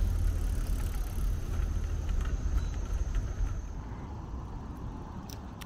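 Outdoor ambience: a steady low rumble with general background noise that drops away about four seconds in, leaving a quieter background.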